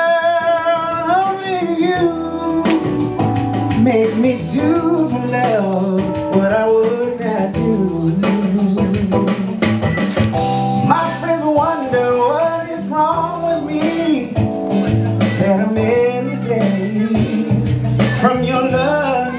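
Live music: a man's voice singing long, sliding runs through a microphone over an instrumental backing with guitar and a steady bass.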